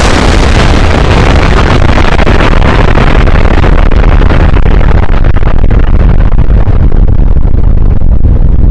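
A sudden, very loud rumbling noise cuts in and holds steady, heaviest in the low rumble, its hiss slowly dulling.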